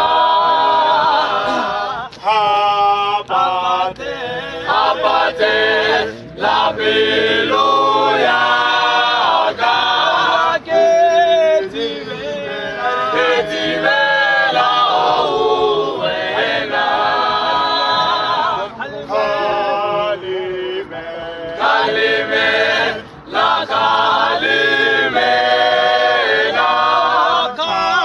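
Male a cappella group of about ten voices singing unaccompanied in harmony, in phrases with short breaks between them.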